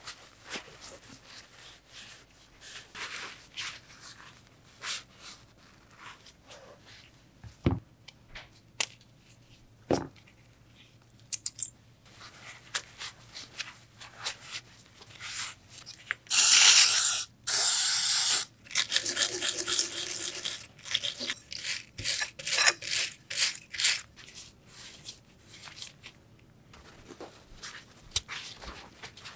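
Paper shop towel rubbing and crinkling as greasy bicycle bottom bracket and headset bearing parts are wiped clean. There are a couple of sharp knocks of metal parts handled on the work mat, and a loud burst of noise lasting about a second and a half about halfway through, followed by quick bouts of scrubbing.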